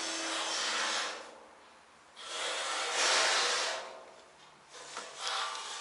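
Breathing close to the microphone: a rushing hiss that swells and fades three times, about every two and a half seconds.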